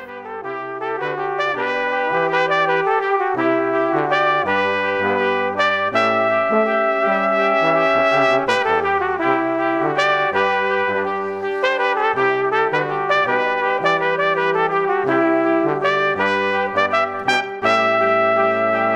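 Closing music with brass instruments playing a melody over a moving bass line, fading in over the first couple of seconds.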